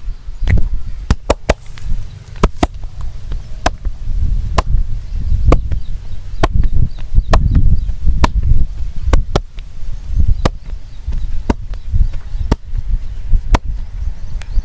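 Percussive hand massage: sharp slaps of the hands on the head or back, roughly one a second and sometimes in quick pairs, with dull low thumps between them.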